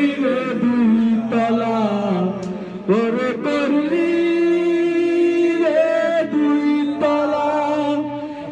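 Several men singing a Bengali song together, a lead voice on a microphone with the others joining in. They hold long notes that waver in pitch.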